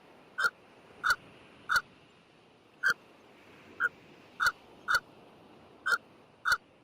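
Pelican calling: a series of about nine short, sharp calls at uneven intervals over a steady background hiss.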